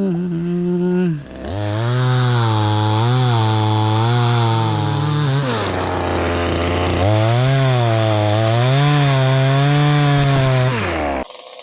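Two-stroke chainsaw running under load while cutting teak, its engine pitch rising and falling as the chain bites. The revs sag briefly about halfway through, then pick up again, and the saw stops abruptly near the end.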